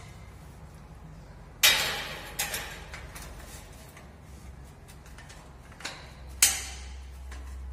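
Sharp knocks on steel gate tubing as the parts are set into alignment: a loud knock a couple of seconds in, two lighter ones just after, and another loud knock near the end, over a steady low hum.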